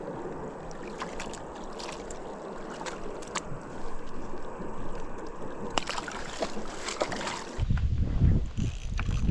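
Water sloshing and lapping with scattered sharp clicks and taps. About three-quarters of the way through it changes abruptly to wind buffeting the microphone.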